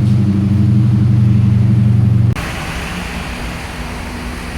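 A car engine running at a steady speed with a loud low drone. It cuts off abruptly a little over two seconds in and gives way to quieter background noise with a faint steady hum.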